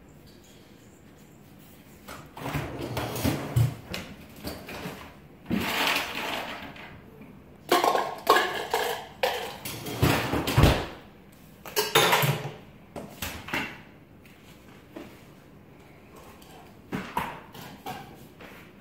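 Kittens scrabbling, scratching and thumping about on a carpeted cat tree and inside its tube, in irregular bursts with one heavier thump about two-thirds of the way through.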